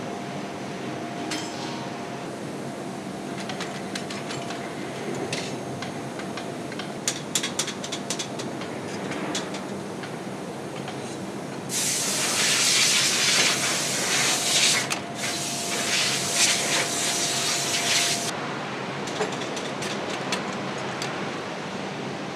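Steady foundry machinery noise with scattered clicks, then a loud hiss of compressed air for about six seconds, cut off briefly halfway, while a freshly cast aluminium engine part is handled.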